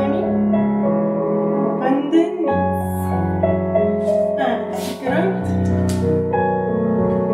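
Slow piano accompaniment for a ballet plié exercise: held chords that change about every two and a half seconds.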